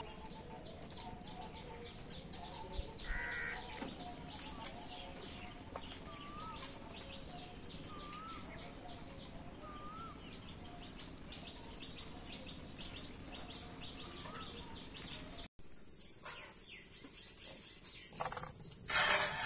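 Birds calling outdoors: many small chirps with a few short wavy whistled notes. About two-thirds of the way through the sound cuts abruptly to a loud, steady, high-pitched insect drone, with a few knocks near the end.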